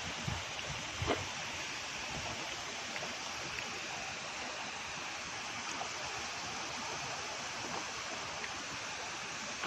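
Steady rush of flowing river water, with a few short knocks in roughly the first second.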